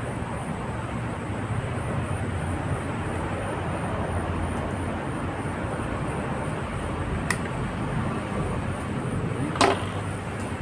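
Steady rushing background noise with a low rumble, and a few sharp clicks about seven and nine and a half seconds in.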